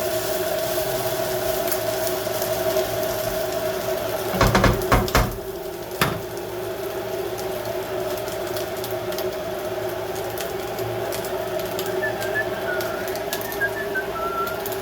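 Vegetables frying in a dry pan under a steady hum, with a cluster of knocks about four and a half seconds in and a single knock at six seconds, likely a utensil on the pan. A bird chirps a few times near the end.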